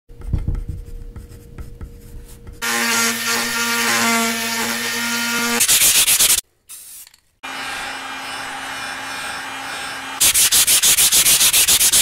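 Sheet of aluminium oxide sandpaper rubbed hard back and forth over a wooden board in quick, even strokes, about nine a second in the loudest stretches, with a short gap about halfway through. A steady droning tone sounds under it for a few seconds near the start.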